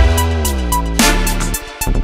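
Electronic music with a heavy beat: a hard hit with a deep falling bass about once a second under a synth line gliding downward. The bass drops out briefly near the end.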